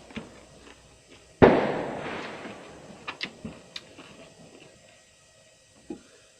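A loud, crisp crunch as a raw vegetable is bitten close to the microphone, about one and a half seconds in. Several smaller crunches of chewing follow.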